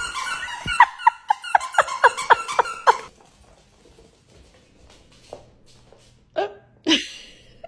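A dog letting out a rapid series of short, high-pitched yips that fall in pitch, about three a second, then two lower barks near the end.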